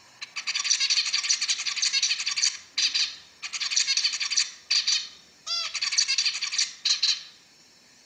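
Male zebra finch singing: a string of fast, buzzy, clicking phrases broken by short pauses, with one short nasal note about five and a half seconds in.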